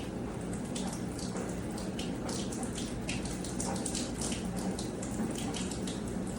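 Water running and splashing steadily, with many small irregular splashes over a faint low hum.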